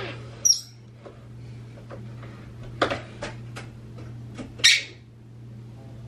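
Pet parrots making short, sharp squeaks, clicks and chirps: a high squeak about half a second in, a run of clicks around the middle, and a loud chirp near the end.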